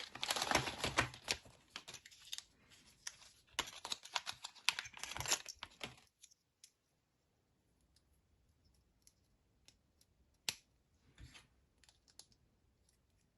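Packaging being torn open and rustled by hand for about the first six seconds, then faint handling clicks and one sharper click about ten and a half seconds in.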